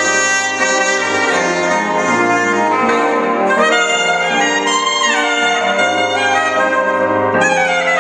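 Instrumental break of a soft-rock ballad: a saxophone plays a solo line over band backing, with a falling run about five seconds in and another near the end.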